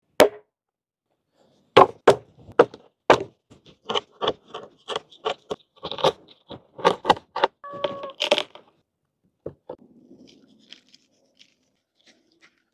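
Knife work on whole fish on a wooden cutting board: a quick series of sharp taps, cuts and scrapes, several a second, with a plate set down on the board at the very start and a brief ringing note about eight seconds in. The last few seconds hold only faint handling of the fish on the board.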